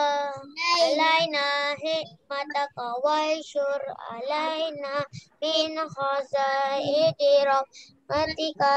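A child's voice singing an Islamic prayer chant in held, melodic phrases with short pauses between them.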